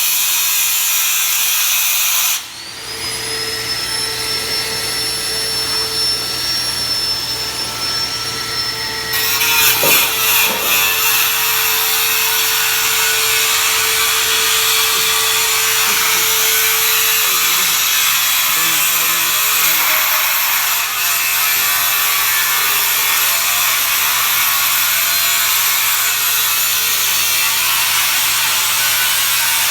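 Loud, steady harsh hissing noise of metalworking tools, with a thin high whine from about two and a half to nine seconds in.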